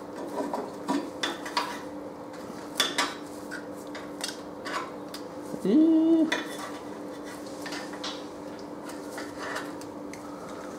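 A flat-blade screwdriver clinking and scraping against the engine sump's join line as it is worked in to split the sump from the block, giving scattered light metal taps over a steady low hum. About halfway comes a short tone that rises in pitch and holds for about half a second.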